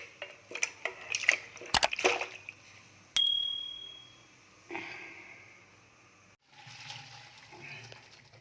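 Cooking clatter with metal utensils and a pot: several quick knocks and scrapes. About three seconds in comes one sharp metallic ding that rings for about a second, and soon after a brief liquid splash and hiss that fades.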